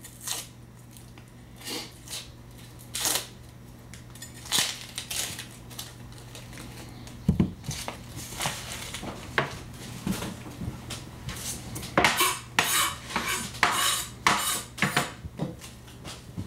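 Chef's knife cutting a red onion on a wooden cutting board: irregular sharp knocks of the blade against the board, sparse at first and coming in quicker runs in the last few seconds.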